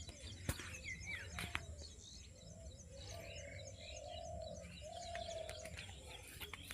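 Many birds chirping and calling, with quick high twitters throughout and a longer held call in the middle, over a steady low background rumble; two sharp clicks early on.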